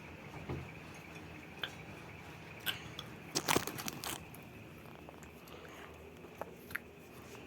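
Scattered light clicks and knocks of objects being handled, with a small cluster about halfway through.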